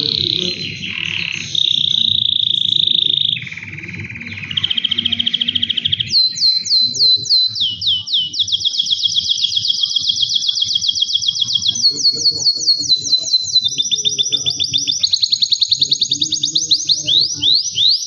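Male canary singing a continuous song of rapid trills, each phrase of quickly repeated falling notes lasting one to two seconds before switching to the next, with a steady held whistle about two seconds in.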